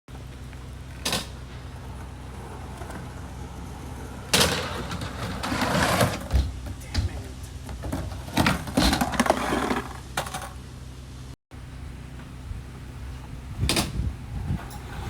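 Skateboard rolling on concrete with a steady low rumble, broken several times by sharp clacks and knocks of the board.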